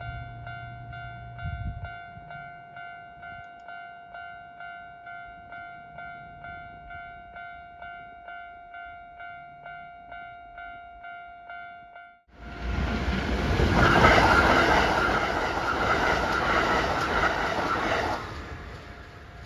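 Level-crossing warning bell ringing in a steady pulse, about two strokes a second. About twelve seconds in it cuts out abruptly, and a Kintetsu Osaka Line train passes over the crossing much louder for about six seconds, with the bell faint beneath it.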